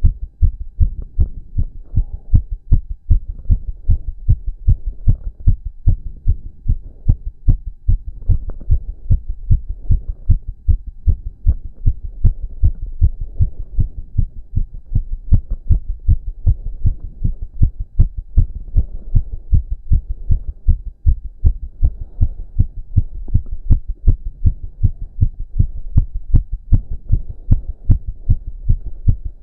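A man's heartbeat picked up close against the chest: a fast, steady train of low, dull thumps with no break. It is racing after exercise.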